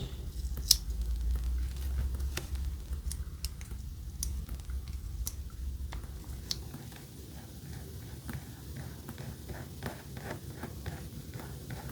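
Small repair tools clicking and tapping against the Apple Watch as it is taken apart: sharp single clicks, the loudest about a second in, over a low hum that fades about halfway through. Near the end comes a quicker run of fainter ticks.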